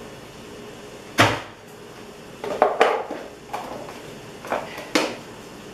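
Kitchen utensils and cookware knocking and clinking: one sharp knock about a second in, then several lighter clinks.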